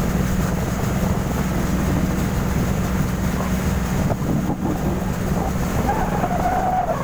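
Engine of a motorized outrigger bangka boat running steadily under way, with wind on the microphone.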